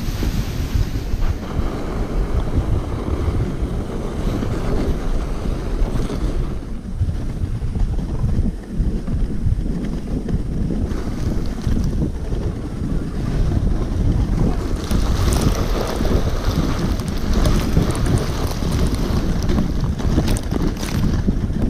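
Wind rushing over the microphone mixed with the steady scrape and rumble of a sledge's metal runners sliding fast over packed snow, with sharper scraping and rattling in the last several seconds.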